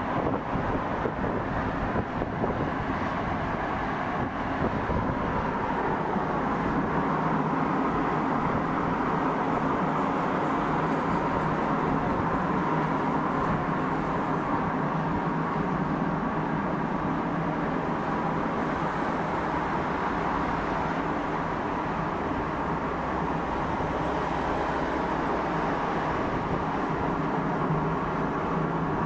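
Steady road traffic noise: a continuous rush of vehicles and tyres on the road, with no revving or distinct engine note standing out.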